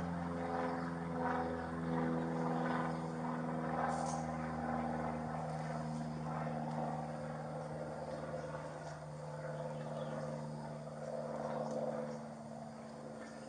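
Steady engine drone, one unchanging pitch with its overtones, that fades away near the end.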